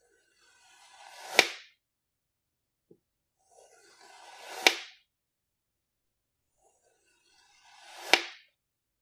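Knife slicing through a block of kinetic sand three times: each cut is a gritty crunch that grows over about a second and ends in a sharp tap as the blade meets the wooden tabletop. The cuts are about three and a half seconds apart, with a faint tick between the first two.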